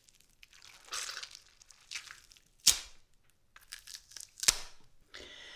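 A squash being broken up by hand and tool for gore foley: wet crunching and tearing of its flesh in short bursts, with two sharp hits, one near the middle and a louder one about four and a half seconds in.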